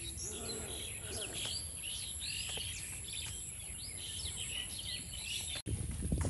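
Many birds chirping and calling in quick, varied notes over a steady high insect drone and a low rumble. Near the end the sound drops out for an instant, then gives way to louder low thumps.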